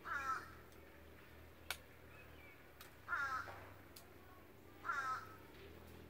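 A bird giving three short, harsh calls, each under half a second and bending downward in pitch, a couple of seconds apart. A single sharp click comes between the first two calls.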